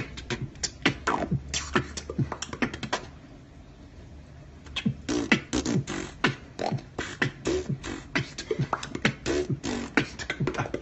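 Beatboxing: a fast run of percussive mouth sounds with short pitched tones. It breaks off for about two seconds a third of the way in, then picks up again more densely.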